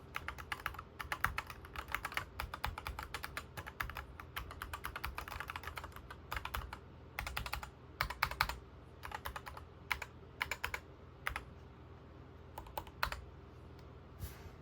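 Mechanical keyboard being typed on as a sound test: fast runs of key clicks for the first several seconds, then shorter bursts of keystrokes with pauses between them, and a few single presses near the end.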